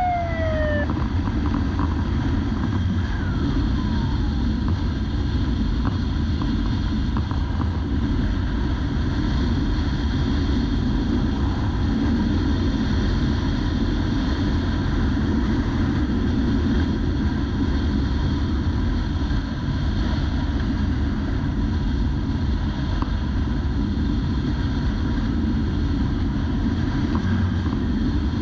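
Police motorcycle running at highway speed, with wind rushing over the microphone, steady throughout. In the first second a siren winds down, falling in pitch until it dies away.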